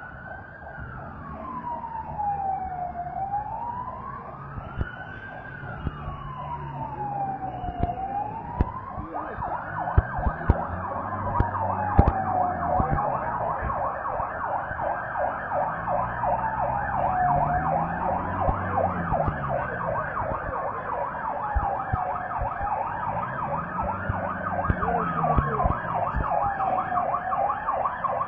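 Emergency vehicle siren wailing slowly up and down, about one rise and fall every five seconds, joined from about nine seconds in by a second, fast-warbling siren. A few sharp bangs stand out around the middle.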